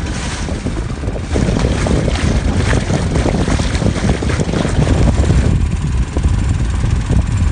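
Strong wind buffeting the microphone on a small boat under way across a choppy lake, a loud, gusting rumble.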